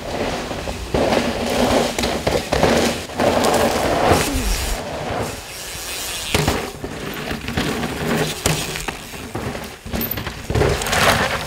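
YT Jeffsy trail mountain bike riding over a dry dirt trail strewn with dead bracken and twigs. The tyres crunch and skid through the debris, with sharp knocks and rattles from the bike at irregular moments.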